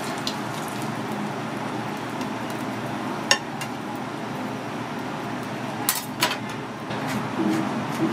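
Metal utensils clinking against plates and glassware, a few sharp clinks spread out (the loudest about three seconds in, two more close together around six seconds), over a steady sizzling hiss from a teppanyaki griddle.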